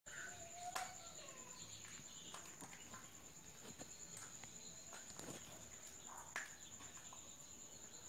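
Steady high-pitched trill of night insects, with faint scattered clicks and rustles.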